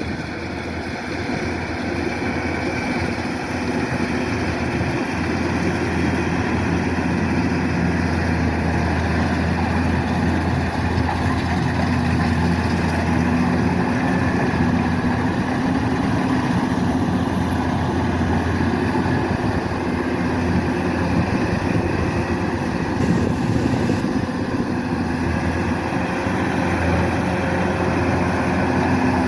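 Kubota DC-105X rice combine harvester running steadily, a constant diesel-engine drone that grows a little louder over the first few seconds.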